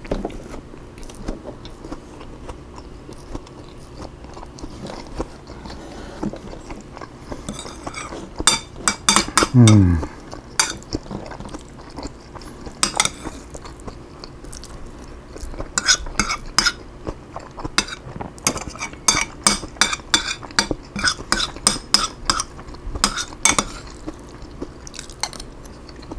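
Eating utensils clicking and scraping against a dish in quick flurries, with chewing, as forkfuls of food are taken. About a third of the way in, a short sound slides down in pitch, the loudest moment.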